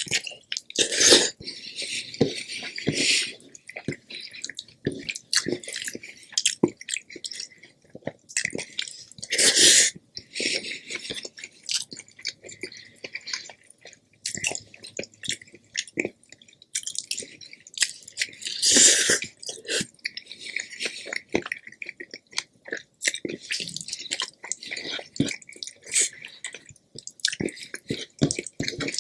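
Close-miked eating: steady chewing with wet, clicking mouth sounds, and a few louder, longer bursts of eating noise about a second in, about ten seconds in and about nineteen seconds in.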